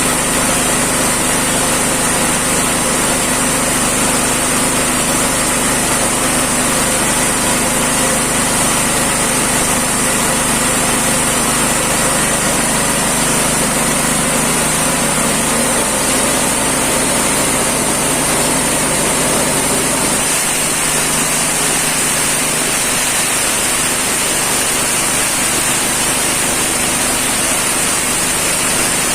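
Motorised feed chopper (forage chopping machine) running steadily with a loud mechanical hum and hiss; its tone shifts about halfway through.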